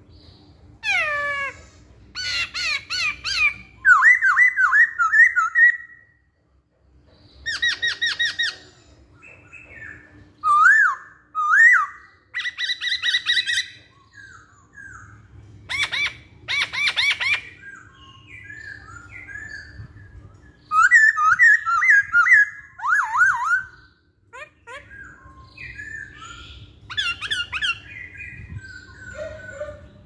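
Caged black-throated laughingthrush (poksay hongkong) singing: loud phrases of sliding whistled notes alternating with fast rattling runs of repeated notes, broken by short pauses.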